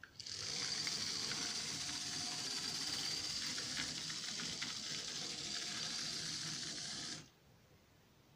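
HO scale Tyco EMD SD24 model diesel locomotive running on its track: the small electric motor gives a steady high whine over a hissing rattle of wheels and gears. It starts just after the beginning and cuts off suddenly about seven seconds in, when the power is shut off.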